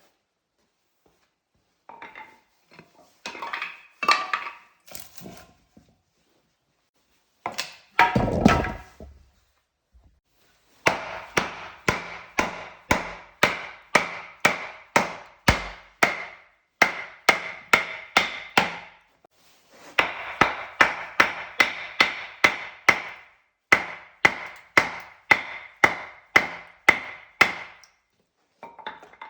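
Repeated striking blows on wood, about two to three a second, in runs of several seconds with short pauses. Each blow rings briefly, and one heavier thud comes about eight seconds in.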